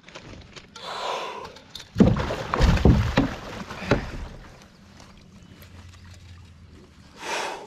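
Knocks and water sounds around a kayak as a landing net is worked in the water beside it. The heavy knocks, loudest about two to four seconds in, are followed by a quieter stretch and a short rush of noise near the end.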